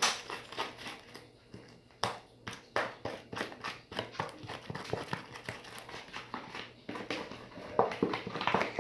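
A spoon stirring thick glue-and-shaving-foam slime in a bowl: a long run of irregular clicks and knocks of the spoon with squelching, as the slime comes away from the sides.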